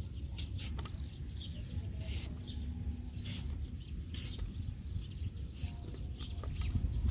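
Knife cutting slices from a ripe mango held in the hand: several short, crisp cuts at irregular intervals about a second apart, over a low rumble of wind on the microphone.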